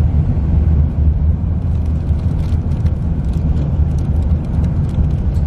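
Steady low rumble of engine and road noise inside a moving truck's cabin.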